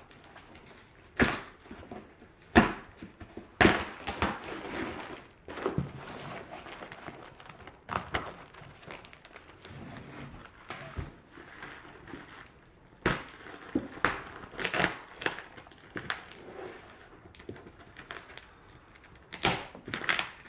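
Plastic stretch wrap crinkling and tearing as it is pulled off a large cardboard box, in irregular sharp crackles and rustles, with some knocks of the box being tipped and handled.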